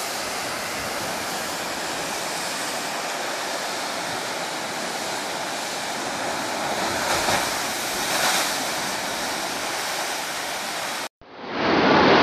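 Ocean surf surging and crashing into a rocky inlet: a steady roar of churning water that swells a little about seven and eight seconds in. It cuts off abruptly near the end, and a louder wash of waves rises in after it.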